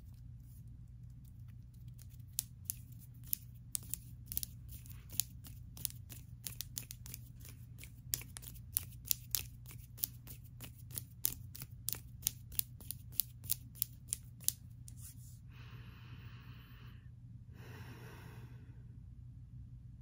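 Quick, irregular sharp clicks, several a second, from long acrylic fingernails clicking and tapping during hand movements close to the microphone. The clicks stop about three-quarters of the way through and are followed by two short rushing swishes.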